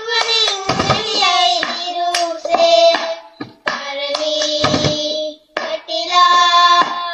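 A boy singing long held notes while keeping a rhythm with hand claps and knocks of a cup on a tabletop, in the style of a cup-rhythm game.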